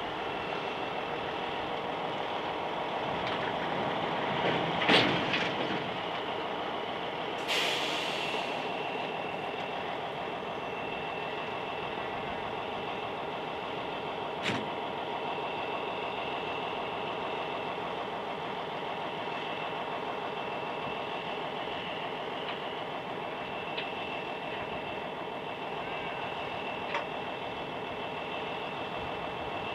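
Heavy truck's diesel engine idling steadily under a steady high whine, with a short hiss of released air brakes about seven to eight seconds in. A loud knock comes about five seconds in and a lighter click about fourteen seconds in.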